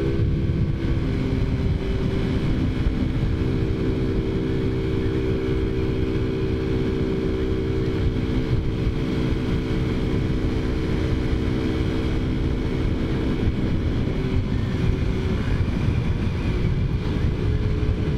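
Taotao Zummer scooter's small four-stroke engine running steadily at cruising speed, its even note shifting a little near the end, with wind rumbling on the microphone.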